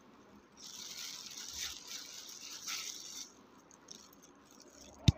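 Soft wet squishing and plastic rustling of a bag-covered hand mashing soaked tamarind pulp in a steel bowl, lasting about three seconds and then quieter, with a sharp click near the end.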